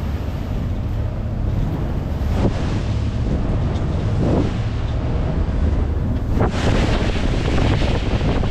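Strong wind buffeting the microphone on an open ferry deck, over the wash of choppy lake waves against the hull. The wind grows louder and hissier about six and a half seconds in.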